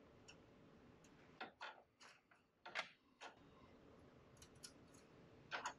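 Faint, sharp plastic clicks and taps, about half a dozen, as a bare fibre element is pressed into the routing guides of a plastic fibre splice tray, with near silence between them.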